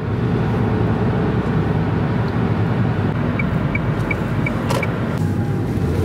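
Car in motion heard from inside the cabin: a steady drone of engine and tyre road noise. A little past the middle, five faint short beeps come at an even pace.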